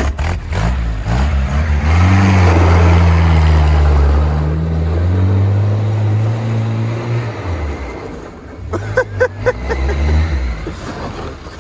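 GAZ-69A's four-cylinder side-valve engine revving hard as the jeep accelerates and swings around on loose dirt, with a hiss of dirt thrown from the tyres. The revs climb, hold for several seconds, fall, then climb and drop again near the end. The engine is running on a newly replaced crankshaft.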